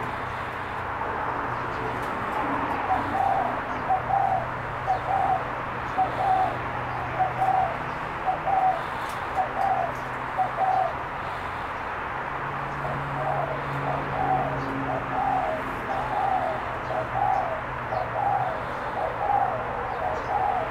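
Spotted dove calling in two long runs of short, evenly repeated coos, about two a second, with a brief pause about halfway through.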